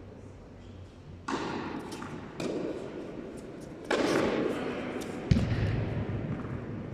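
Tennis ball impacts during doubles play: four sharp hits, each with a brief trailing echo, the loudest a deeper thud about five seconds in.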